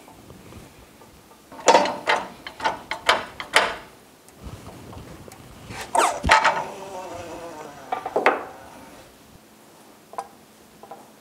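Metal parts and tooling clicking and clanking on a hydraulic shop press: a quick run of sharp clicks about two seconds in, then a louder clank around six seconds that rings on as it fades, and another knock a couple of seconds later.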